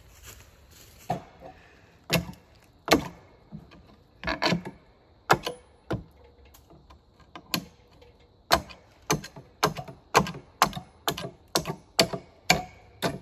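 Hammer blows on the wooden tree stand: a few scattered strikes at first, then steady hammering at about two blows a second for the last few seconds.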